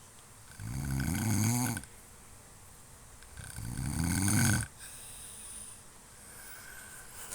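A sleeping man snoring: two snores about three seconds apart, each lasting a little over a second. The second swells louder and then cuts off sharply.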